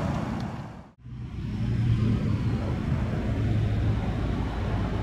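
Low, steady rumble of the Audi A5's 2.0-litre turbocharged four-cylinder idling, heard from outside the car. The sound drops out briefly about a second in.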